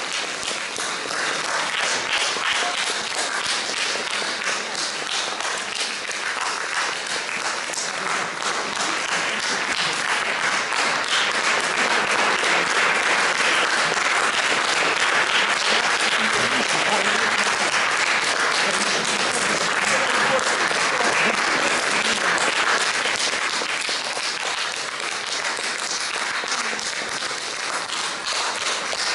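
Audience applauding, a dense patter of many hands that swells in the middle and eases off toward the end.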